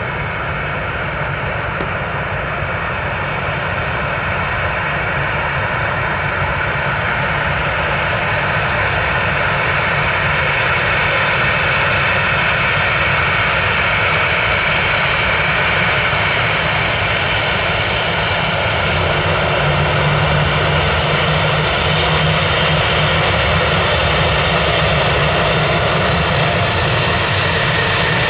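Boeing 737-700's CFM56-7B turbofan engines running as the airliner taxies close by: a steady jet whine over a low rumble that grows gradually louder. Near the end, a whine rises in pitch.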